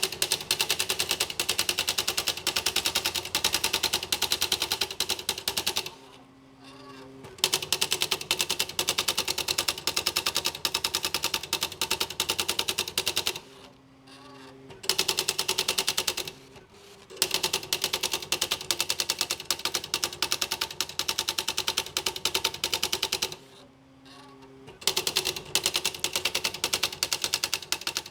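Smith Corona SL 500 electric typewriter running its built-in demo program, typing a rapid, even stream of key strikes. The strikes come in long runs, broken four times by a brief pause with a steady motor hum.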